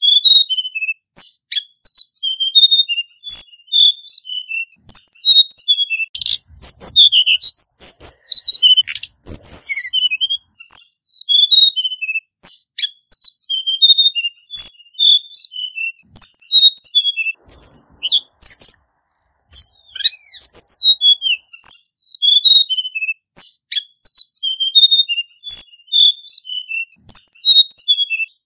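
Male hill blue flycatcher singing: phrase after phrase of quick, clear, high whistled notes, each phrase about one to two seconds long with short pauses between.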